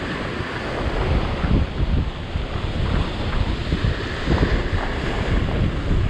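Rough sea surf breaking and washing over coastal rock ledges, with wind buffeting the microphone in gusts.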